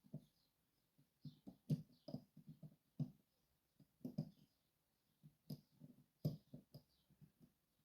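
Faint, irregular clicks and light metallic taps of lock picks working the levers of a Sargent & Greenleaf 6804 lever safe lock, coming in small clusters with short pauses.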